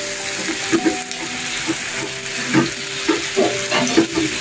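Chopped aromatics and sauces sizzling in a non-stick wok while a silicone spatula stirs them, with soft scrapes of the spatula now and then.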